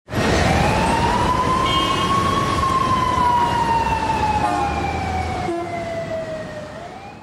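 A siren wailing: one tone rises slowly for about two and a half seconds, then falls slowly back down over a steady rushing noise, fading near the end.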